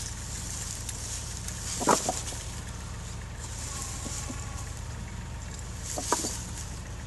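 Tractor engine idling steadily while a tow chain is handled in dry leaves, with sharp metal clinks of the chain about two seconds in and again near the end.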